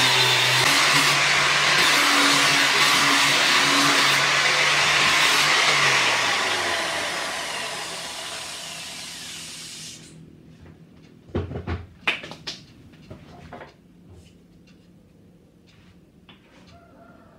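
Electric angle grinder with a sanding pad running against a Gombong bamboo tray, then lifted off and switched off, its motor fading away over about four seconds. A few sharp knocks follow about a second later.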